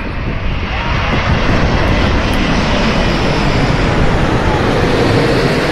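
Airbus A380's four jet engines: a loud, steady rushing roar that swells over the first second or so and holds.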